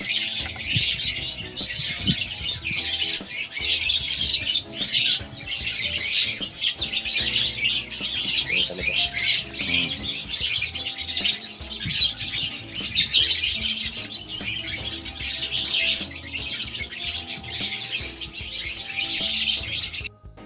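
Hand-fed bird chicks chirping rapidly and continuously, with music playing underneath; the chirping cuts off just before the end.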